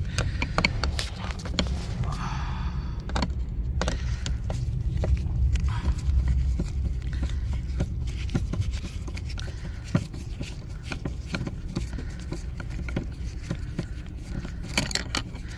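Phillips screwdriver turning a screw out of the interior door-handle recess of a car door panel, with small irregular clicks and scraping of the tip in the screw head, over a steady low rumble.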